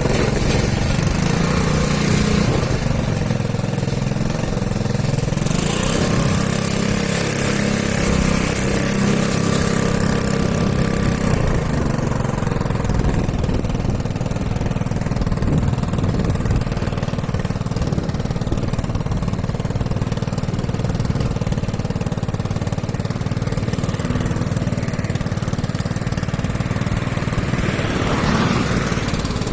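Small motorcycle engine running steadily under way, with its pitch shifting a little about a third of the way in, and a hiss of wind over it.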